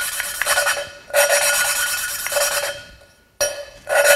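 A valve being hand-lapped into its seat in an aluminum LQ9 cylinder head: a suction-cup lapping stick spins the valve back and forth, grinding gritty lapping compound between valve face and seat. It comes in spells of a second or two with short pauses between.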